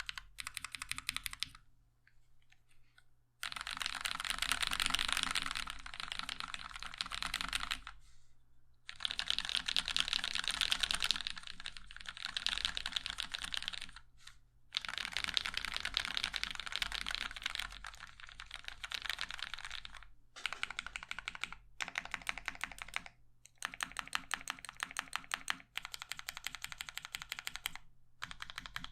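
Continuous typing on a Prime_E 40% mechanical keyboard with linear switches (UHMWPE stems in Cherry MX housings, 65g Durock springs), an acrylic plate and case, and blank ABS keycaps. Rapid keystrokes come in dense runs with more clack than thock, broken by brief pauses, the longest a second and a half long about two seconds in.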